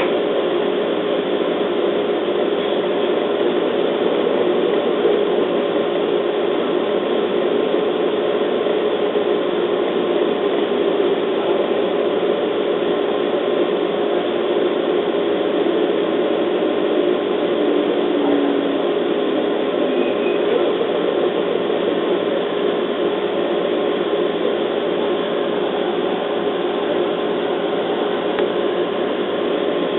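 Interior running sound of a JR East 211 series electric train: a steady rumble of wheels on rail mixed with a low motor hum at a constant level.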